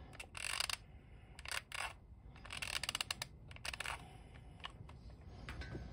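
Handling noise: scattered light clicks and short rustles as a tool and small plastic model parts are picked up and moved about on a cutting mat.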